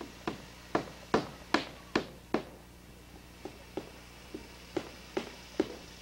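Hammer blows, likely nails being driven in roofing work: six sharp strikes about 0.4 s apart, a pause of about a second, then a second, softer run of about six strikes.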